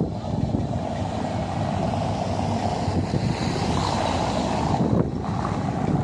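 Road traffic and wind on the microphone: a car's tyre noise on the paved road swells, then falls away about five seconds in, over steady wind buffeting.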